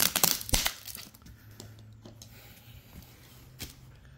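Clear plastic bag crinkling under a hand for under a second, then quiet handling with a faint steady low hum and a single click about three and a half seconds in.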